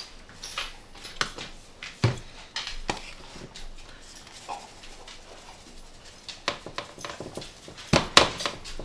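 Handling clatter of a plastic squeeze bottle and a seasoning shaker being picked up, knocked and set down on a glass-top stove, then the shaker shaken out over the meat: scattered clicks and taps, with a sharp knock about two seconds in and a busy run of taps near the end.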